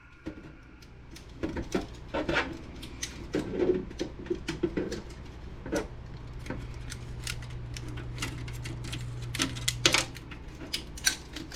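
Plastic parts of an inkjet printer clicking, snapping and clattering as it is taken apart by hand, with a steady low hum for a few seconds in the middle.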